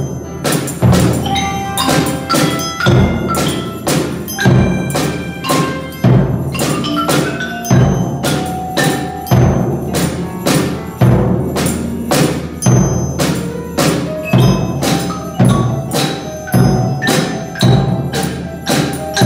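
Children's rhythm band: keyboard harmonicas play a melody in held notes, while tambourines and bell sticks keep a steady beat of strikes.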